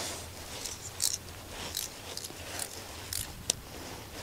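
Scattered short, scratchy rustles and a sharp click about three and a half seconds in: close-up handling of ice-fishing tackle.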